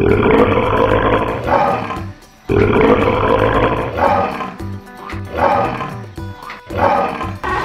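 Tiger roar sound effects: two long roars of about two seconds each, then several shorter roars, over steady background music.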